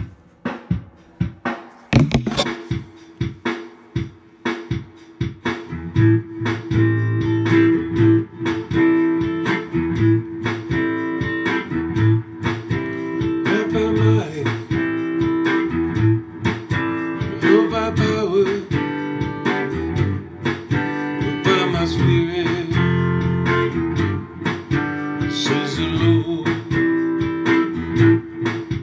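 Guitar playing a slow instrumental intro of strummed and plucked chords in A minor (Am, G, F, G, Am), with a held note ringing underneath. A few clicks come first, and the guitar starts about two seconds in.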